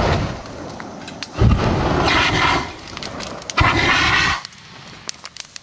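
Backpack flamethrower firing in bursts: a rushing blast with a deep rumble carries on just past the start, then two more blasts of about a second each come a little over a second in and again past three and a half seconds, stopping suddenly.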